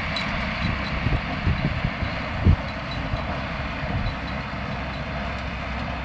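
John Deere 4055 tractor, a six-cylinder turbo diesel, running steadily under load as it pulls a working round baler through the hay, heard from across the field. A few low thumps stand out, the loudest about two and a half seconds in.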